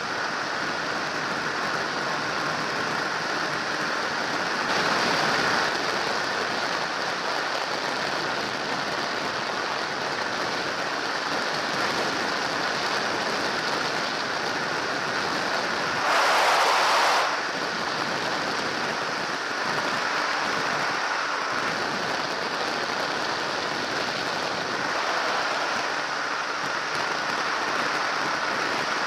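Microlight trike in cruising flight: a steady rush of wind noise with the engine's drone under it. The noise swells briefly twice, about five seconds and seventeen seconds in.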